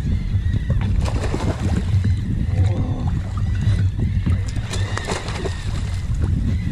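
Wind rumbling on the microphone and sea water slapping against an inflatable boat's hull, with scattered small knocks.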